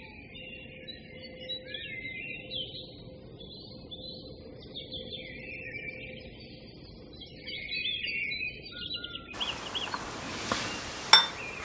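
Birds chirping and twittering over a low, steady hum for about nine seconds. It then gives way to fuller room sound with two light clinks of a metal spoon against a ceramic bowl near the end.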